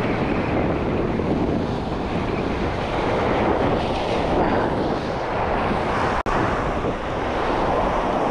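Wind buffeting the microphone over surf washing against the rocks, steady throughout, with a momentary break in the sound about six seconds in.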